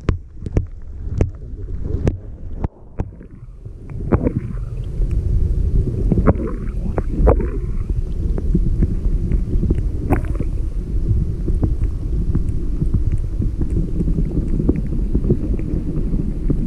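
Muffled underwater sound picked up by a submerged camera in river water: a steady low rumble, with sharp clicks and knocks that come thickly in the first few seconds and only now and then after that.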